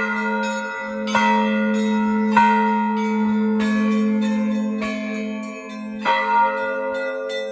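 Russian Orthodox church bells ringing a festive Easter peal: a low bell hums on steadily while several smaller bells are struck over it, roughly once a second, each stroke ringing on.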